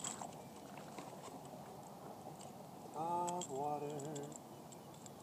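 A man's voice makes a short two-part sound, about a second long, about three seconds in, over a faint steady background hiss with a few faint clicks.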